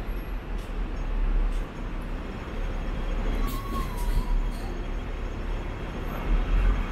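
Hong Kong electric double-decker tram running along its street track, heard from on board: a steady low rumble of wheels and running gear.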